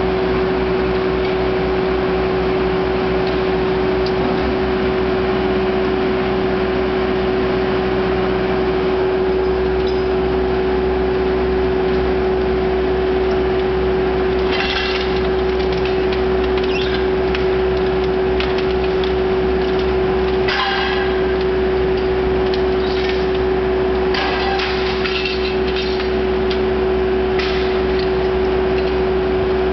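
MAC 1850 baler running with a steady hydraulic hum and low rumble. From about halfway through, scattered metallic clanks and crunches come from the aluminium extrusion scrap being handled and compressed.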